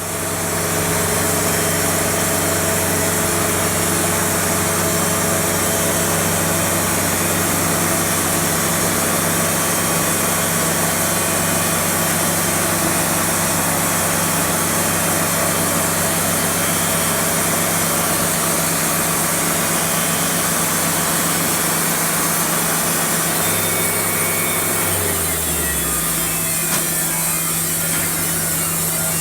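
Wood-Mizer LT70 band sawmill running, its blade sawing steadily through a log under the engine's constant hum. Near the end a low tone drops in pitch.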